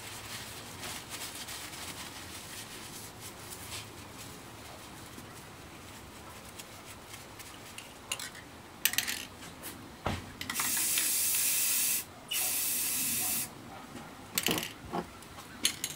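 Aerosol spray paint can spraying in two long hissing bursts a little past the middle, with short clicks and knocks of handling around them.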